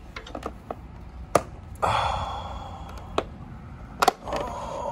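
Sharp clicks and knocks of a white plastic line-set cover lid being pressed and snapped onto its channel: the loudest comes about a second and a half in, with a quick double click near the end. Between them come long breathy exhales of effort.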